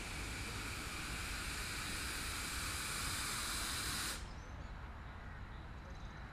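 Small steam locomotive hissing loudly as it releases steam while moving off. The hiss cuts off abruptly about four seconds in, leaving a low rumble.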